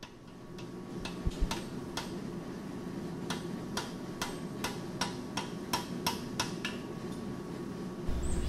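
A run of sharp ticks in an uneven rhythm, about two a second, over a steady low hum. The ticks stop about two-thirds of the way through, and a low rumble comes in near the end.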